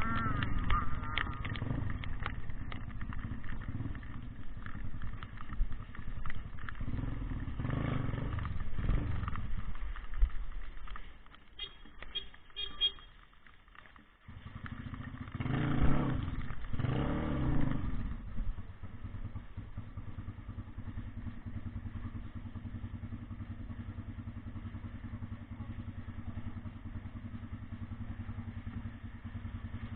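An engine running, with two short rises in level about sixteen and seventeen seconds in, then a steady idle.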